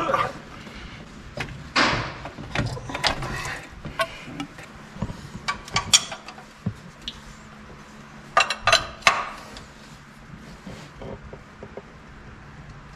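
Scattered knocks, clicks and clinks of metal tools and parts being handled, in clusters around two seconds in, four to six seconds in and near the nine-second mark, over a faint steady low hum.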